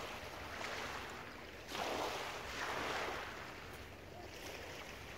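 Small waves washing up on a shingle beach, swelling and falling back, with the loudest surge starting a little under two seconds in.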